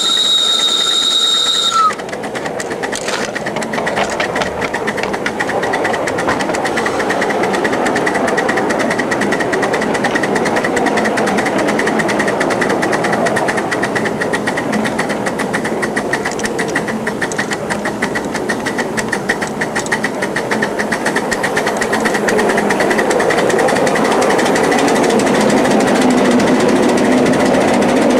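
A 1-inch-scale live-steam 0-4-0 switcher locomotive's steam whistle blows a steady tone that cuts off about two seconds in. The engine then runs on with a rapid, steady rhythmic beat of its exhaust and wheels on the track, turning lower and fuller near the end as it passes into a covered bridge.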